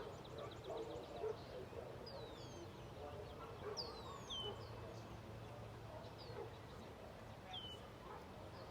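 Birds chirping faintly: short, high calls that slide downward, repeating every second or two, with a quick trill at the very start.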